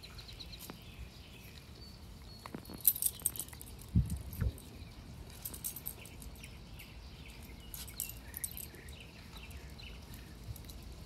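Faint metallic jingling now and then from the dogs' collar and leash hardware as they play, over light bird chirping in the background, with two dull thumps about four seconds in.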